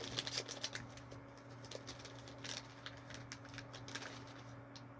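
Faint crinkling and small clicks from a packaged cookie being handled: thickest in the first second, then sparse, over a steady low hum.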